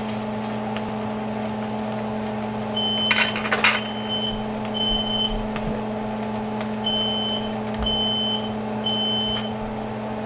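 Steady electric hum of a kitchen range-hood fan, with a clatter about three seconds in. Over it come two runs of three short high beeps, a second apart with a longer pause between runs: the three-beep pattern of a smoke alarm set off by frying bacon.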